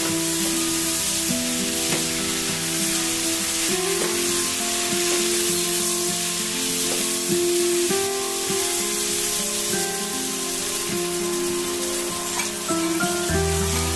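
Beef, chives and vegetables sizzling hard in a hot nonstick wok as a wooden spatula tosses them, with light scraping knocks of the spatula against the pan. Soft background music plays underneath.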